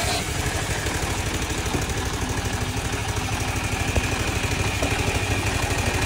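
An engine idling steadily with a rapid, even low beat, typical of the engine that drives a rural sawmill's saw before a cut.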